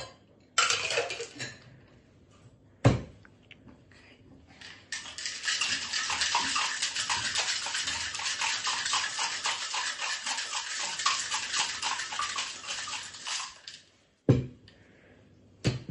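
Juice being poured into a metal cocktail shaker tin, a sharp knock as the shaker is closed, then ice rattling hard and evenly inside the metal shaker for about eight seconds of shaking, ending with another sharp knock.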